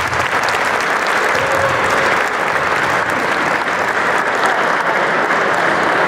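Crowd applauding steadily.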